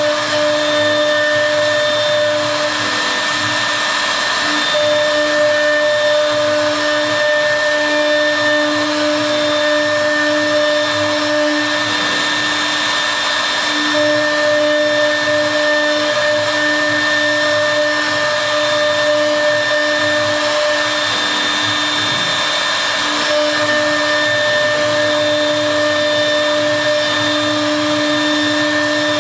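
Twin-spindle machine tool running through a cut: a steady whine of several tones over a constant rushing hiss, some of the tones dropping out and coming back every few seconds.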